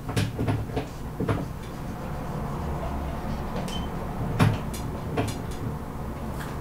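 Dry-erase marker on a whiteboard while writing: a run of short taps and scrapes, the loudest about four and a half seconds in, with a brief high squeak near the middle. A steady low room hum runs underneath.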